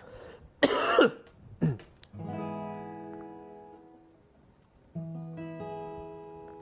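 Acoustic guitar strummed twice: one chord about two seconds in and another about five seconds in, each left ringing and slowly dying away. Just before, a brief loud sound slides down in pitch.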